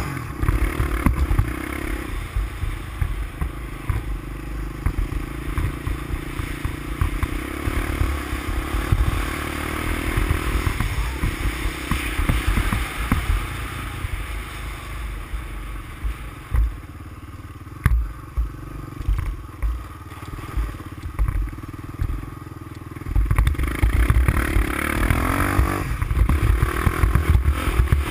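350X ATV engine running under way, with steady low exhaust pulses; it eases off to a quieter stretch for several seconds past the middle, then picks up again near the end.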